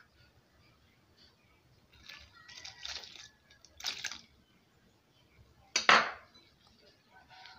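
Hands scraping and mixing flour and butter in a plastic bowl, in short bursts, with milk poured in from a glass about four seconds in. A single sharp knock near six seconds in is the loudest sound.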